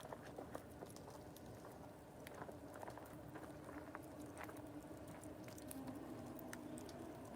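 Wood campfire crackling softly, with scattered sharp pops and snaps at uneven intervals. A faint low steady tone sits beneath it from about two seconds in.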